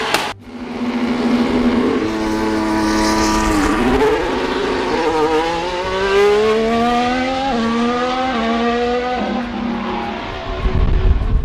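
Formula 1 car's turbocharged V6 hybrid power unit running on track. It holds a steady note, dips briefly, then climbs in pitch through two upshifts before giving way to a low rumble near the end.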